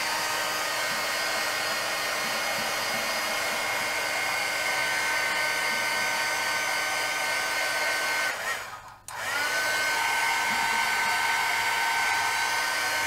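Craft heat tool blowing steadily with a high fan whine, drying a coat of Mod Podge on paper. It cuts off about eight seconds in and starts again a second later, its whine rising as the fan spins back up.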